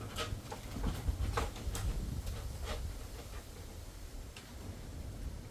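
Plastic interior trim of a 2013 Toyota Prius trunk being handled and pressed into place: scattered light clicks and taps, most in the first three seconds, over a low rumble.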